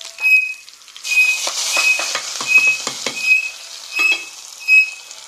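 Food added to hot coconut oil for tempering, sizzling from about a second in, with quick clicks of a spoon stirring. A high, short chirp repeats about once every 0.7 s throughout.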